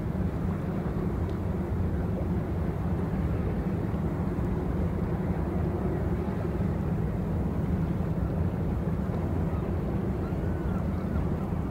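Steady low engine rumble over a quiet harbour ambience.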